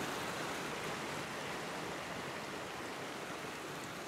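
Small mountain trout stream rushing over rocks: a steady, even hiss of running water that slowly fades.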